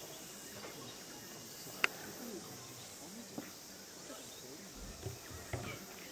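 Quiet campsite ambience: a faint murmur of distant voices over a steady high hiss, with one sharp click about two seconds in and two low thumps near the end.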